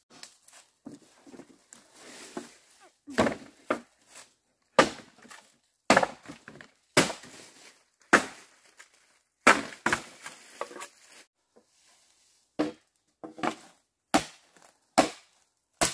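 Repeated chopping blows: a dozen or so sharp strikes at uneven intervals, roughly one a second, with a brief pause a little past the middle.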